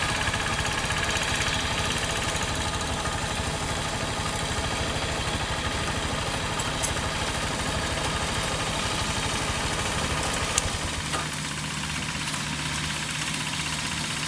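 Single-cylinder diesel engine of a two-wheel hand tractor running steadily while it pulls a plough through the field.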